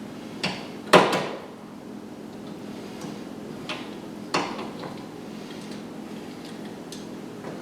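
Metal TV wall-mount brackets knocking and clicking as they are hooked onto the wall plate and locked: four sharp knocks, the loudest about a second in.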